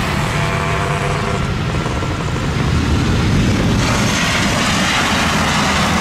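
Jet noise from a Boeing 737-800's CFM56 turbofan engines as the airliner rolls down the runway just after touchdown: a steady rushing roar that turns hissier about four seconds in.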